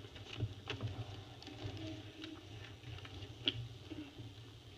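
Faint, scattered light taps and rustles over a low steady hum, with one sharper tick about three and a half seconds in.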